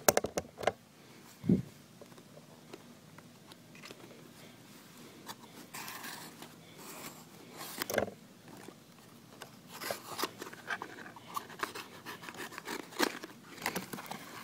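A pocket knife blade slitting the packing tape on a cardboard shipping box while the box is handled and its flaps worked open: scrapes, clicks and a couple of knocks, growing busier in the last few seconds.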